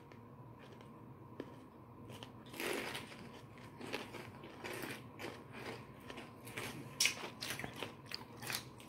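Close-up chewing and crunching of raw sweet bell peppers stuffed with cream cheese and Takis chips, with wet mouth clicks and crisp crunches, sparse at first and more frequent in the second half.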